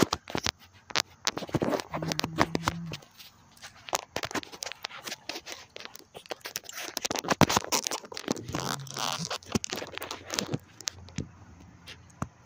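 Irregular metallic clicks and scrapes of a quarter-inch drive ratchet and 10 mm socket being fitted onto the steel bolts of the intake rocker arm solenoid valve.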